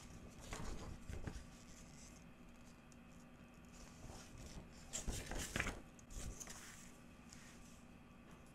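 Gloved hands handling a glossy photo print and a photobook album: soft paper rustles and slides around a second in, and again, louder, about five to six seconds in as the print is laid down on the table. A faint steady hum lies under it between.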